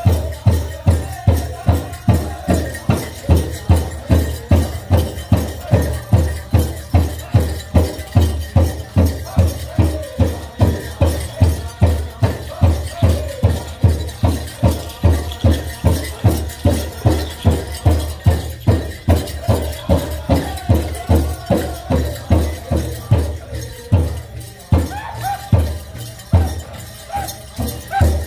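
Powwow drum group singing high over a big drum struck in a steady beat, about two and a half strokes a second. Near the end the drumbeat turns soft while the voices carry on, then one hard stroke lands.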